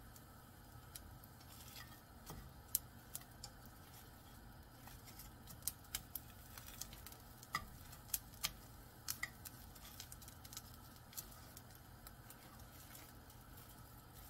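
Oil-brushed laver (gim) sheets toasting in a hot dry frying pan over a high flame: scattered faint crackles and sharp ticks, most of them in the middle, as the sheets are turned and lifted with wooden chopsticks, over a low steady hum.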